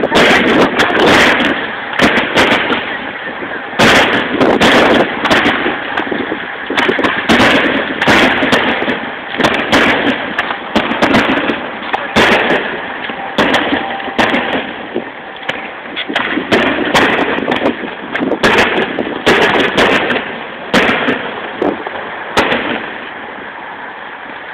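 Fireworks display: a rapid, continuous run of loud bangs and booms, several a second over a crackling din, thinning out near the end.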